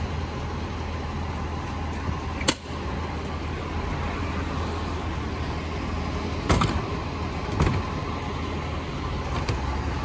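Rear-loader garbage truck's engine running at a steady idle, with sharp knocks from the large plastic wheeled bins being handled at the truck's rear: one about two and a half seconds in and two more close together around six and a half and seven and a half seconds in.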